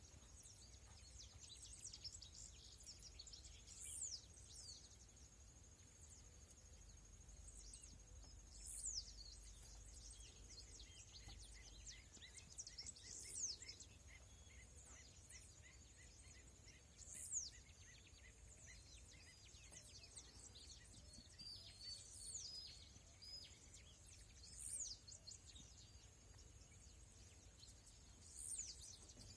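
Faint birdsong: many small high chirps, with one bird repeating a sharp call that falls steeply in pitch about every four to five seconds. A thin steady high tone and a low rumble run underneath.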